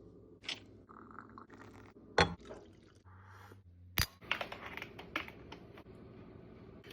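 Sharp clinks and knocks of hard objects, two loud ones about two and four seconds in, with a run of smaller clatters after the second.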